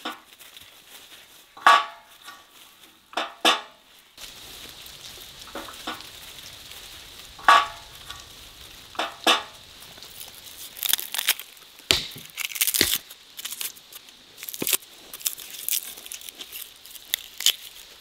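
A handful of sharp knocks spaced a second or two apart, then dry papery garlic skins crackling and tearing as a head of garlic is peeled by hand.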